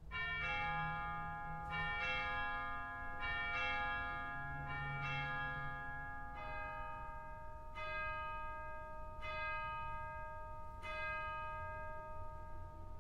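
Background music of slow, ringing bell chimes: a bell tone struck about every one and a half seconds, each ringing on under the next.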